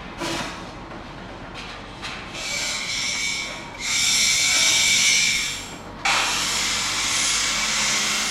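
Construction-site machinery: a run of hissing bursts with a high whine, the loudest lasting about two seconds from about four seconds in, and another cutting in sharply about six seconds in.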